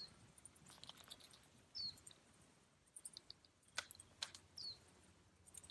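Near silence with a small bird giving short, high, falling chirps about every two seconds, and two sharp clicks about four seconds in.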